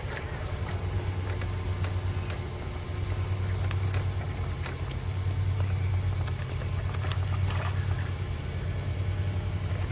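An Ibizan hound wading through water in an inflatable pool, making a few light splashes, over a steady low hum.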